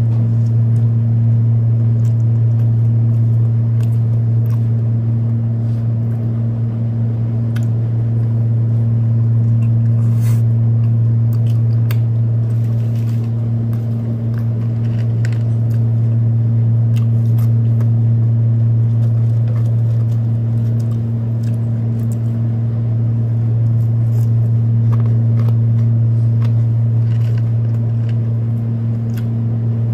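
Steady low hum of a window air conditioner running, with faint clicks of chewing over it.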